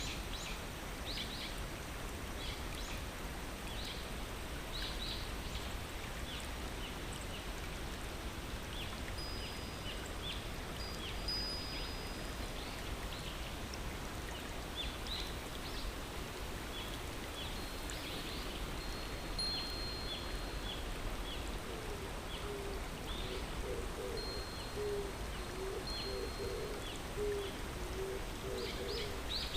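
Steady rush of a flowing river or stream, with small birds chirping throughout. In the last third a bird joins with a repeated low cooing.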